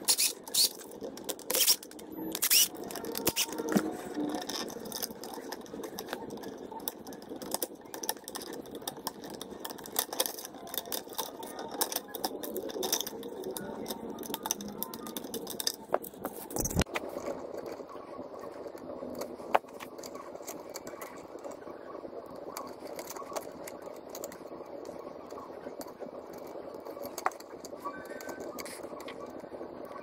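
Scattered small clicks, scrapes and rattles of hand tools on electrical wiring: a screwdriver turning an outlet's terminal screws and pliers working the copper wire ends straight.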